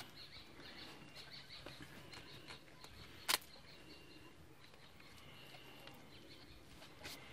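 Faint high-pitched chirping that repeats throughout, with one sharp click a little over three seconds in.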